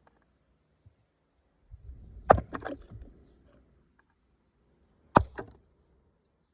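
Two hard blows smashing the plastic smoke alarm and its circuit board on wood, about three seconds apart, each followed by a short clatter of loose pieces.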